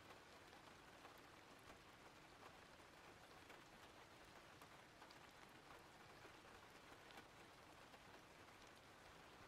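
Faint, steady rain: an even hiss with many light raindrop ticks scattered through it.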